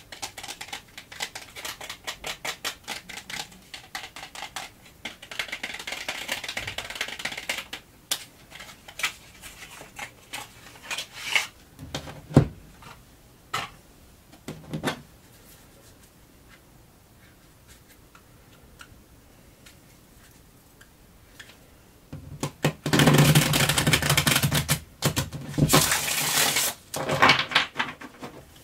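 Oliver Hibert tarot deck and its cardboard box handled close to the microphone: many rapid clicks and taps over the first several seconds, then a few separate knocks. Near the end come two loud rustling bursts of the cards being shuffled.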